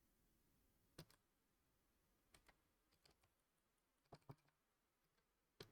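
Bare mechanical keyboard switches, with no keycaps on, pressed one at a time to test a newly hand-wired keyboard: about half a dozen faint, scattered clicks.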